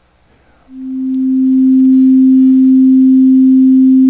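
A single pure sine-wave tone from the amSynth software synthesizer, at one steady pitch. It starts a little under a second in and swells in slowly on a 2-second attack, then holds at its high sustain level.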